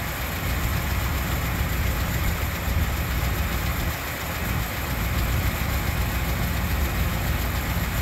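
1979 Chevrolet Monte Carlo's freshly rebuilt engine idling steadily, running on fresh oil and a new filter just after an oil change.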